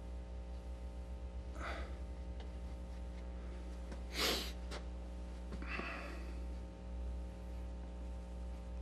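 Steady electrical hum under a man's few breaths and sniffs, the sharpest one about four seconds in.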